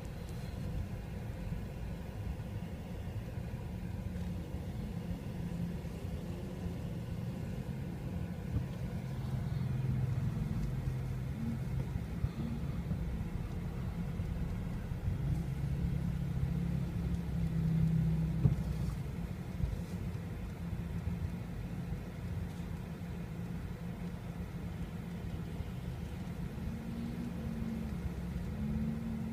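Car engine and road noise heard from inside the cabin while driving: a steady low rumble whose engine note rises and falls a few times, loudest about eighteen seconds in.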